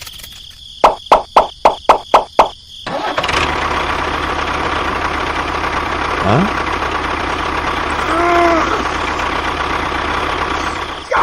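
Seven short, sharp pulses about four a second, then a DIY mini tractor's motor starts about three seconds in and runs steadily.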